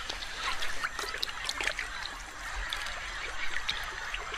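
Shallow river water splashing and trickling as a green anaconda swims through it along the bank: a steady watery wash with many small splashes and drips.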